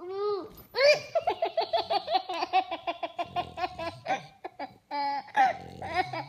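A young child laughing hard: a quick high call, then a long run of rapid, high-pitched giggles about seven a second, easing into a few longer squealing laughs.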